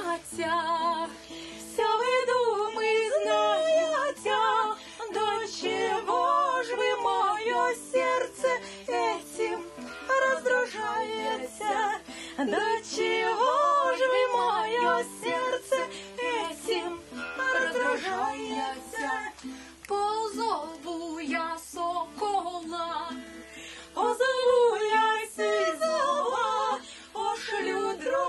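A woman singing a melody while playing an acoustic guitar.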